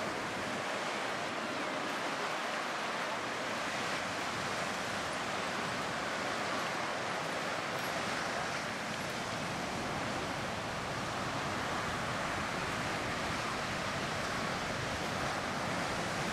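Ocean surf breaking and washing up on a sandy beach: a steady rushing noise.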